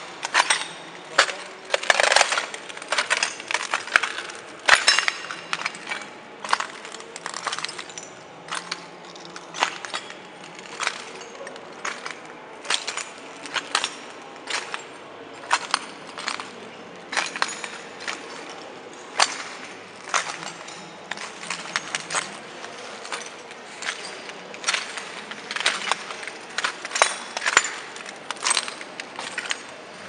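Footsteps crunching over a floor of broken glass, shards cracking and clinking under each step at a walking pace.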